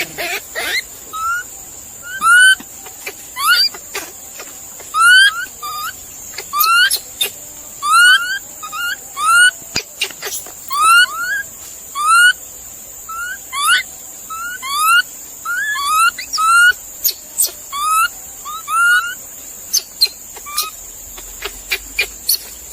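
An animal's short, rising, whistle-like calls, repeated about once a second and often in quick pairs, over a steady high hiss.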